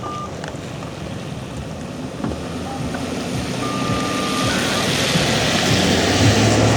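A road vehicle passing, its tyre and engine noise swelling to loudest near the end. A steady high beep sounds briefly at the start and again, longer, about four seconds in.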